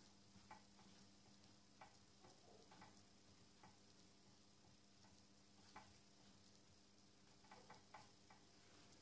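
Near silence: room tone with a steady low hum and a few faint, scattered light clicks from wires being handled.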